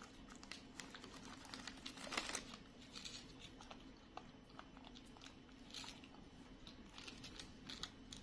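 Faint crinkling of a snack wrapper and small crunches of wafer biscuits being bitten and chewed by pet macaques, with a louder crackle about two seconds in.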